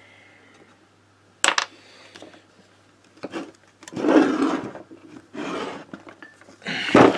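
Handling noise in a workshop: one sharp click, then several short bursts of rubbing and scraping, the last one the loudest.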